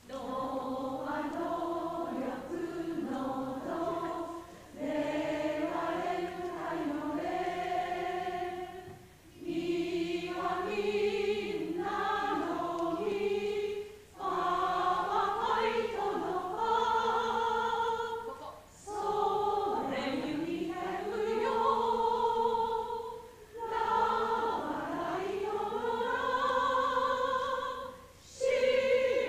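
A group of voices singing a song together, choir-like, in long held phrases separated by short pauses.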